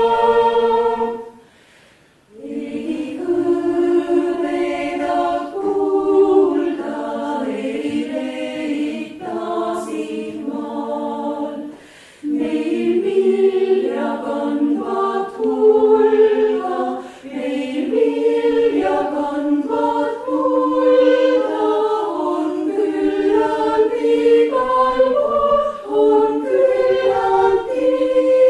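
Chamber choir singing in several parts, in sustained sung phrases. The voices stop briefly about a second in before the next phrase begins, with short breaths again near the middle.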